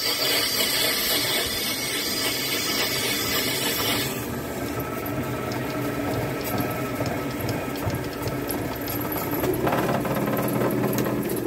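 Lathe running with a steady hum while a twist drill in the tailstock chuck bores into a spinning plastic blank. The cut makes a bright hiss for about the first four seconds, then goes lighter as the bit is eased back out with the lathe still turning.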